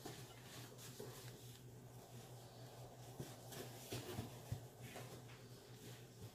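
Faint handling sounds of an egg roll wrapper being folded and rolled by hand on a ceramic plate: a few soft taps and light rustles, over a steady low hum.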